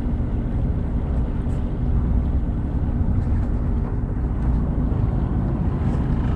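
Fishing boat's engine running steadily, a low even rumble with some wind and water noise over it.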